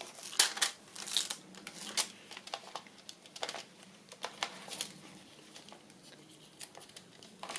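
Paper tags, journal cards and the journal's paper pages rustling and crinkling as they are handled, with scattered light taps; the rustling thins out over the last couple of seconds.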